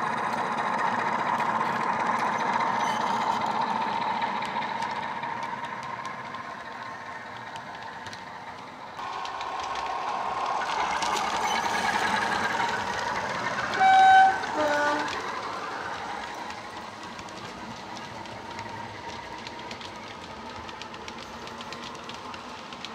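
Heljan OO-gauge Class 45 model locomotive running with a LokSound sound decoder and EM1 speaker: the recorded Class 45 diesel engine sound grows and fades as the train passes, with wheels clicking over the track. About 14 seconds in, the two-tone horn sounds a short high note and then a lower one.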